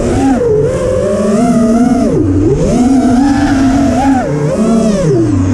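FPV racing quadcopter's brushless motors and propellers whining as it flies, the pitch rising and falling with the throttle and dropping sharply about two seconds in and again near the end. The quad is built on an Armattan Chameleon frame with high-kV Xing-E motors and Ethix props on a 4S LiPo.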